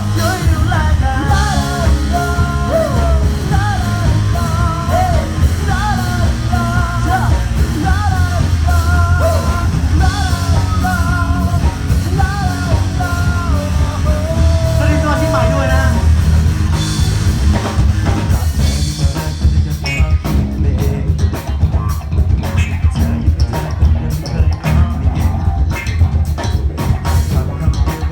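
A band playing a cover song: a singer's melody over drums and backing for roughly the first half, then an instrumental stretch carried by a steady drum beat.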